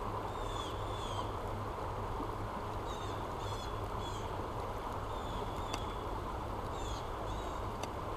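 Steady rush of flowing river water with a bird chirping in short, repeated phrases. Two faint sharp clicks come in the second half.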